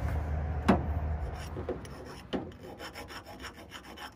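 A file scraping on the cut end of a steel PTO driveshaft tube, taking off the burrs: a few separate strokes, then lighter, quicker scraping. A low rumble fades out in the first second and a half.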